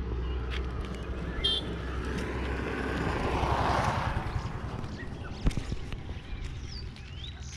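A vehicle passing on the nearby road, its noise swelling to a peak about halfway through and then fading away. Birds chirp now and then.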